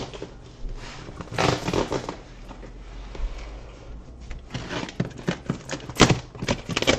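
Box cutter slicing through packing tape and cardboard along a box's seams: scattered scraping, crackling cuts, with a quicker run of sharper ones in the last few seconds.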